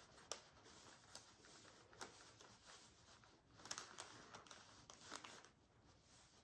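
Faint scratching and light taps of a paintbrush mixing paint on a plastic palette, a little louder a few seconds in.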